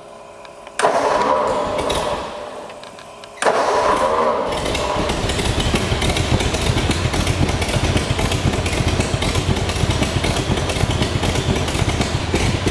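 The Ford engine of a 1949 Allard trials special is cranked on its starter about a second in, stops, and is cranked again about three seconds later. On the second try it catches and settles into a steady idle.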